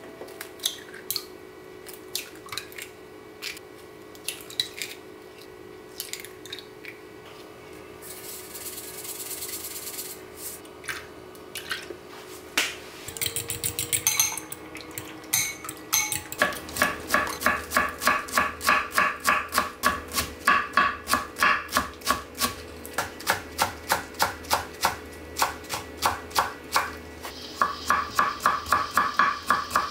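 Kitchen food preparation: scattered clicks and handling noises and a short hiss, then from about halfway a fast, steady run of sharp utensil strokes, about three a second, each with a slight ringing tone.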